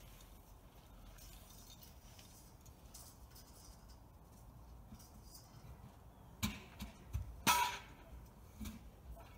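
A few sharp metallic clinks and knocks over a faint background, starting about six and a half seconds in. The loudest comes about seven and a half seconds in and rings briefly.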